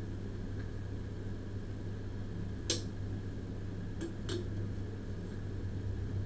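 Steady low electrical hum, with one sharp click about two and a half seconds in and two more close together about four seconds in.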